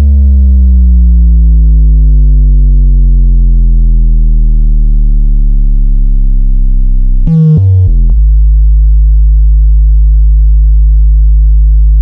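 Very loud synthesized bass test tone played through a subwoofer, thick with overtones. Its pitch slowly glides downward for about seven seconds, stutters briefly, then settles into a steady deep hum.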